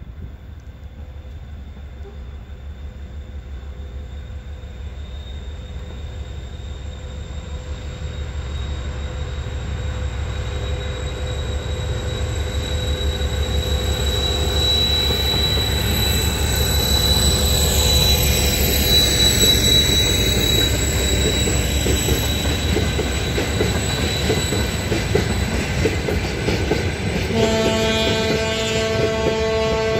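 TEM2 diesel shunting locomotive hauling freight wagons past, its diesel engine running with a low, pulsing beat that grows louder to a peak about two-thirds of the way through, together with the wagons' wheels on the rails. Near the end a steady pitched, horn-like tone comes in.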